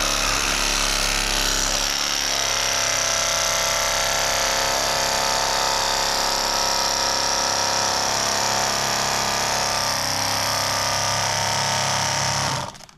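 KastKing Speed Demon cordless electric fillet knife running steadily, its big blades sawing a fillet off a catfish through the ribs. The motor's hum and high whine stop suddenly near the end.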